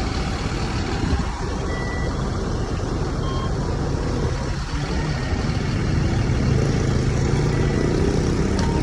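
Large bus diesel engine running amid traffic noise, its deep drone growing stronger about halfway through, with a few brief faint beeps.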